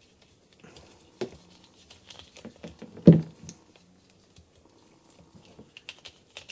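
Small plastic action figure and its proton pack accessory handled in the hands, with scattered light clicks and rattles of plastic parts and one louder knock about three seconds in, as the pack is fitted onto a peg in the figure's back.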